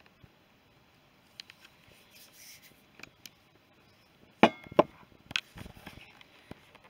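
Scattered sharp clicks and knocks, the two loudest close together just past the middle, followed by a third knock and lighter crackling.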